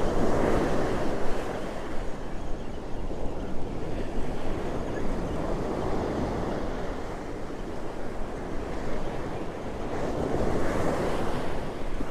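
Ocean surf breaking and washing up a sandy beach, rising in louder surges as waves come in, with wind buffeting the microphone.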